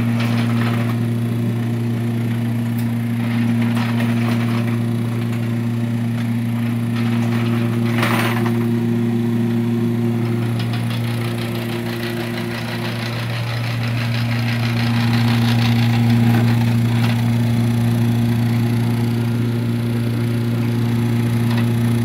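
1909 Hoover Model O electric suction sweeper running steadily, its motor giving a loud, even hum, as it is pushed over a rug. A brief swish comes about eight seconds in.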